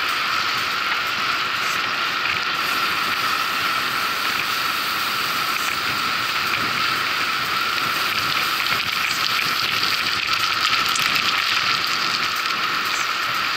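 Steady hiss of bicycle tyres rolling on a road while riding, with a faint steady whine under it.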